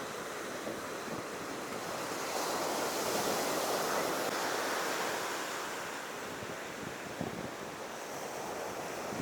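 Ocean surf breaking and washing up the beach, a wave swelling about two seconds in and easing off again after five, with wind buffeting the microphone.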